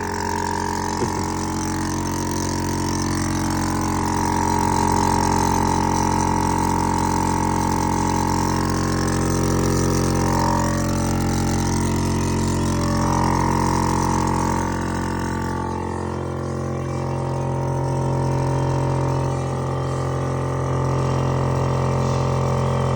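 12-volt air compressor running steadily, pumping up pressure in an air suspension system under test. Its tone changes about two-thirds of the way through.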